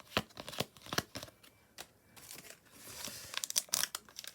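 Trading cards being handled and slid against each other, a string of light sharp clicks. From about three seconds in, the crinkle and tear of a foil card packet being ripped open.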